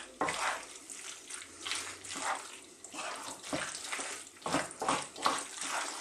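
Wooden spoon stirring macaroni through a thick cheese sauce in a frying pan: repeated, irregular wet squelching strokes with the spoon scraping the pan.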